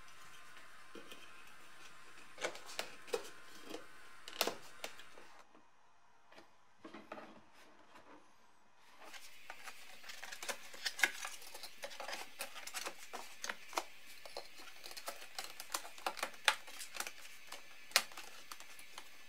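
Hard plastic parts of a BMW E30 dashboard's vent and heater ducting being handled and pushed into place: irregular clicks, taps and light knocks of plastic on plastic. The tapping is sparse at first, eases off for a few seconds, then comes thick and fast from about halfway in.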